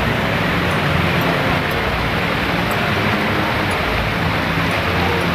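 Muddy floodwater rushing through a street, a loud, steady rushing noise with a low rumble underneath.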